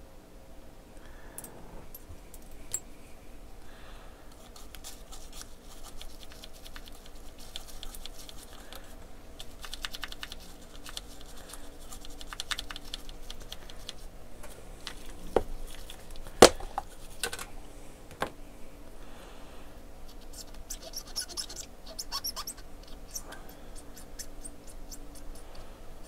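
Scrubbing of a corroded, water-damaged circuit board around a resistor: scratchy scrubbing in irregular spells, with a few sharp taps about 15 to 18 seconds in, the loudest a little past the middle.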